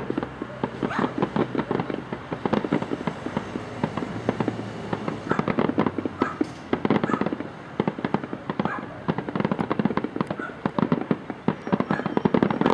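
Aerial fireworks bursting in a rapid barrage of sharp cracks and pops, thickest around the middle and again near the end, with a thinner stretch in between.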